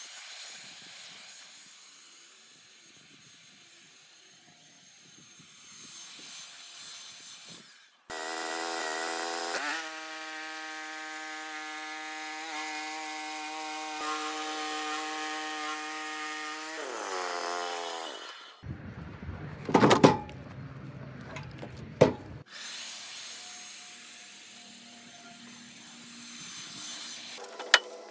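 Portable bandsaw sawmill's gas engine throttling up to a steady high pitch while the blade cuts along the log, then winding down. A few loud knocks and clunks of wood follow as the cut finishes and the board is handled.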